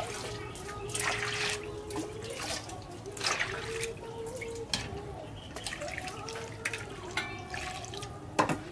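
Water scooped with a small metal bowl from a clay jar and poured into an aluminium basin, splashing in several pours, then hands swishing pieces of fish in the water. A sharp knock near the end.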